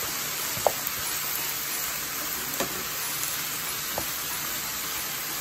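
Wet shredded cabbage and bok choy sizzling in a hot oiled pan as a wooden spoon folds them in, the water left from washing hissing in the oil. Three light knocks of the spoon against the pan.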